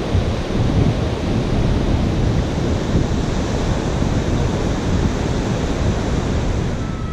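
Surf breaking on a sandy beach, with wind buffeting the microphone in gusts.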